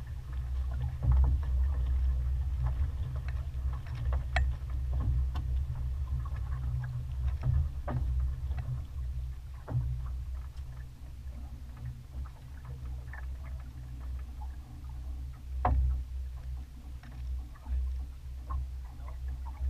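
Wind rumbling unsteadily on the microphone aboard a sailboat under way, with scattered light clicks and taps throughout.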